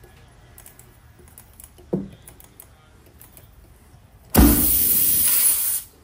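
Air hissing out of a punctured off-road tyre through the reamed hole as the plug-kit reamer is pulled out: a loud, steady hiss that starts and stops sharply and lasts about a second and a half, near the end. Before it, quiet handling of the reamer with a small knock about two seconds in.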